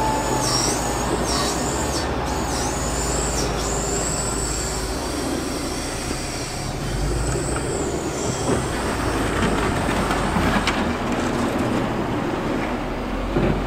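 Wheel loader's diesel engine running steadily, with several wavering high-pitched squeals over it in the first few seconds and again about seven seconds in.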